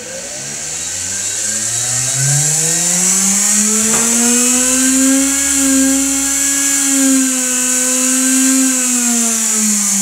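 Small reed-switch-triggered 'window' pulse motor running: its magnet rotor hums with a pitched whine that rises over the first couple of seconds as it spins up, holds steady, then falls away near the end. A single click about four seconds in.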